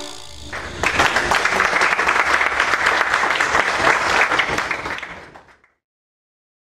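An audience applauding after a children's song. The clapping starts about a second in and fades out near the end.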